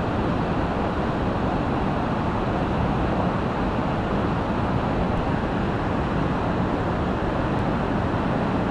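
Whitewater of a river waterfall pouring over a rock ledge: a steady, unbroken rushing noise.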